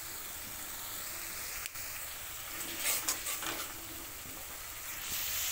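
Masala paste of tomato and ground spices, with chilli powder just stirred in, sizzling steadily in hot oil in a kadai as it is fried down. A few short scrapes of the spatula through the paste about three seconds in.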